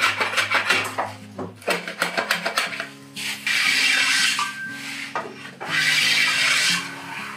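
Hand-working the edge of a white oak slat: quick short scraping strokes at first, then two long rubbing strokes along the wood, about three and a half and six seconds in.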